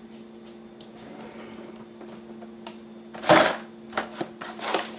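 Rummaging through kitchen things while searching for a knife: scattered light clicks, then two louder rattling clatters, the first and loudest about three seconds in and the second near the end.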